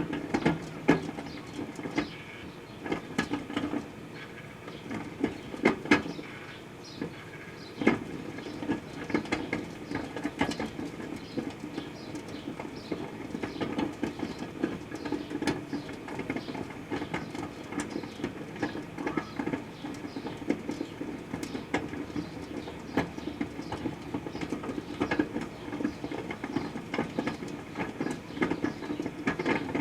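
Proctor-Silex microwave oven running with a steady hum while sugarcane heats inside, with irregular sharp clicks and pops throughout, the loudest about a second, six seconds and eight seconds in.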